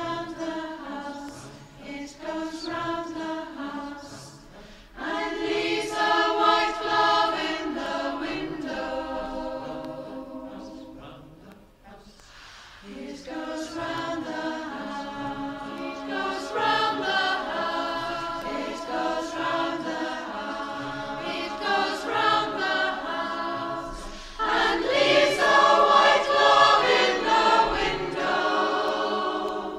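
Four-part SATB community choir singing, captured on a phone recording. The voices swell louder about five seconds in, thin out briefly around twelve seconds, and rise to their loudest in the last few seconds.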